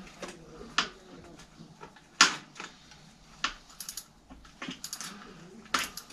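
Irregular sharp clicks and light metallic clinks, roughly one every half second to second, some with a short high ring, from hand work on the hub of a kids' bike wheel while its freewheel is being reassembled.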